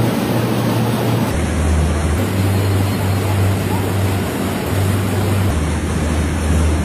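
Match-making machine running: a steady, loud mechanical rushing noise with a low hum. The hum shifts in tone a little over a second in and again about five and a half seconds in.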